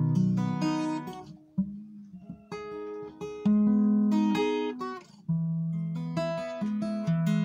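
Acoustic guitar strummed, chords struck every second or so and left to ring, the sound dropping away briefly about one and a half seconds in and again around five seconds in.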